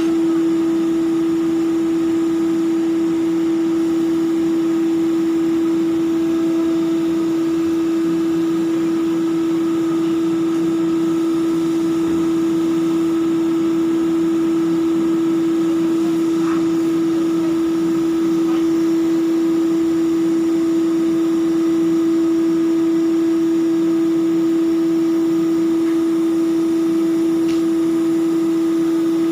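Steady drone of ship's machinery with one strong held tone, unchanged throughout, with a few faint clinks.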